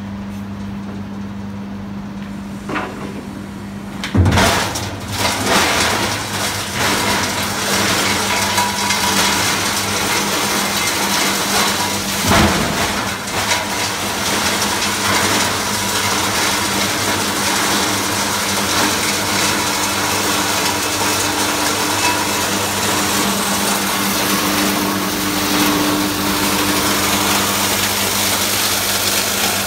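Jinhengli PC 5065 plastic crusher running with a steady motor hum. About four seconds in, a PET plastic tank is fed in and the rotor blades chop it into flakes with loud, uneven cracking and clattering that continues as the plastic is ground.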